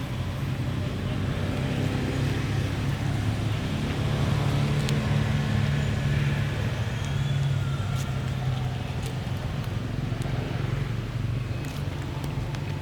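A steady low motor hum that grows louder through the middle and eases off again, with a few faint clicks.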